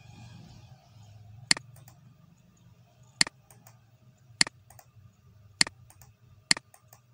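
Five sharp computer mouse clicks, each followed closely by a fainter second click, spaced roughly one to one and a half seconds apart.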